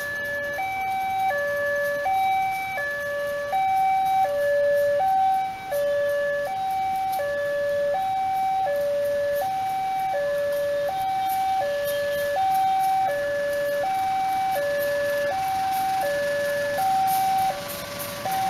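Railway level-crossing warning alarm: an electronic two-tone signal alternating steadily between a higher and a lower tone, each held for about two-thirds of a second, sounding because a train is approaching.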